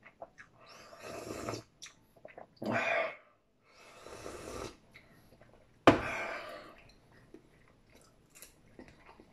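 A person slurping soup from a bowl held to the mouth, three noisy slurps about a second and a half apart. About six seconds in comes a single sharp click, the loudest moment, followed by faint chewing.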